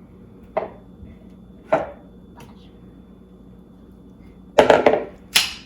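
Kitchen items knocking and clattering on a countertop: a few single knocks, then a louder burst of clatter near the end.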